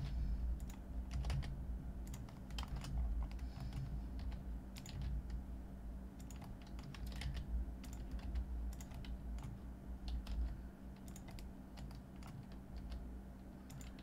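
Computer keyboard keystrokes, irregular clicks a few at a time, over a steady low hum.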